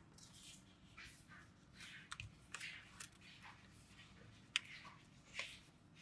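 Faint paper rustling and crinkling as a sheet of origami paper is folded and creased by hand, in short scattered bursts, with a sharp tick about four and a half seconds in.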